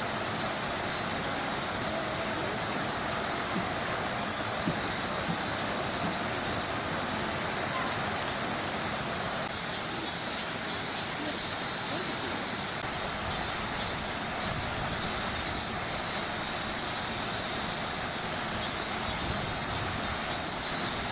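Steady, even hiss of outdoor background noise with faint voices mixed in.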